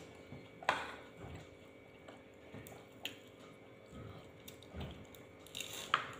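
Close-up chewing and soft wet mouth sounds of people eating, with a few sharp clicks of a spoon against crockery, the loudest near the start and just before the end.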